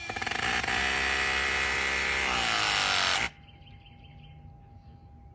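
Battery-powered press tool for copper press fittings running an empty cycle, its motor whining steadily for about three seconds, the pitch shifting near the end, then cutting off suddenly. The empty cycle calibrates the tool after a new jaw is fitted.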